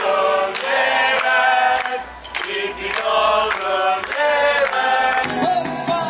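A pop song: several voices singing together over a steady beat.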